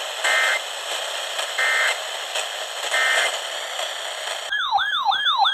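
Weather-radio static hiss with three short, identical bursts of EAS digital data tones, about a second and a third apart: the end-of-message code that closes a NOAA Weather Radio alert. Near the end, a loud warbling tone sweeps rapidly up and down about three times a second and cuts off suddenly.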